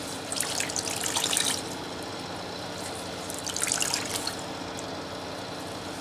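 Water streaming and dripping into a tub as wet laundry is twisted and wrung out by hand. It comes in two spells, about half a second in and again about three seconds later.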